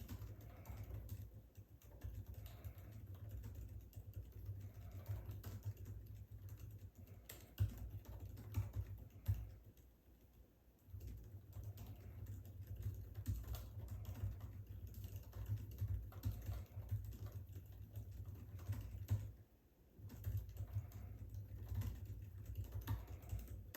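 Very fast touch-typing on the scissor-switch keyboard of a 2021 MacBook Pro 14-inch: a dense, continuous patter of key clicks, breaking off briefly about ten seconds in and again just before twenty seconds.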